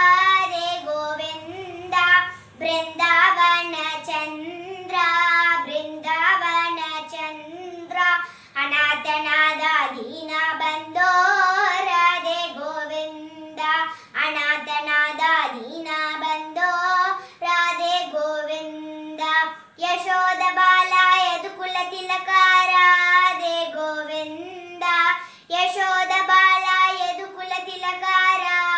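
A young girl singing a Radhe Krishna devotional bhajan solo, with no instruments heard: sung phrases with long held notes and short breaths between them.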